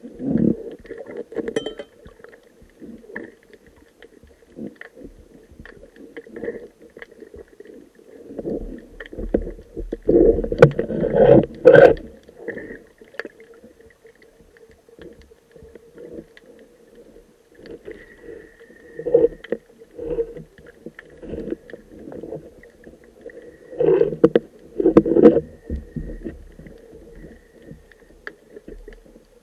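Muffled underwater noise: irregular gurgling rumbles and knocks from a diver's air bubbles and handling of gear close to the camera, loudest in two stretches about ten and twenty-four seconds in, over a faint steady hum.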